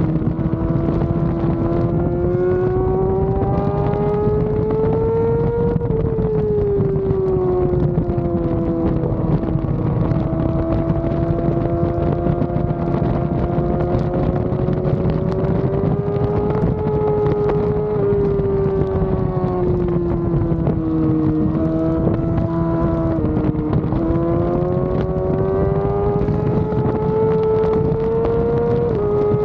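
Yamaha R6 sport bike's inline-four engine running at high revs on track, its pitch climbing under throttle and falling off again as it goes through corners, with a couple of sudden pitch drops near the end at gear changes. Steady wind rush runs underneath.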